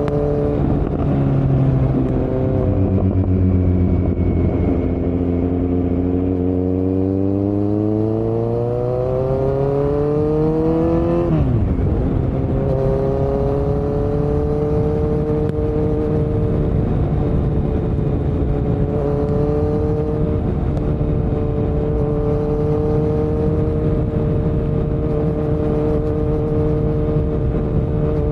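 2018 Kawasaki Z900's inline-four engine running through Delkevic headers and a Yoshimura muffler with no dB killer. The engine note dips at first, then climbs steadily in pitch for about eight seconds as the bike accelerates, drops sharply about halfway through, and then holds steady at a cruise.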